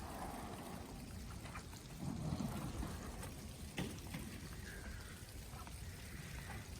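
Water trickling and dripping in wet, snowy conditions, with a few sharp drip-like taps, the clearest about four seconds in.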